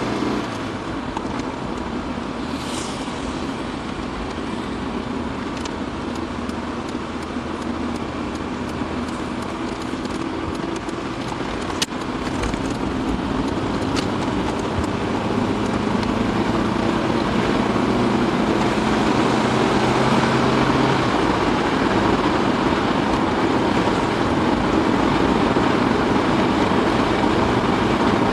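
Car interior road noise while driving: a steady rush of tyre and engine noise that gets louder over the second half, with a single sharp click about twelve seconds in.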